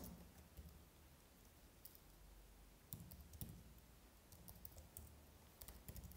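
Faint, scattered keystrokes on a computer keyboard while typing code, a few clicks every second or so with short pauses between them.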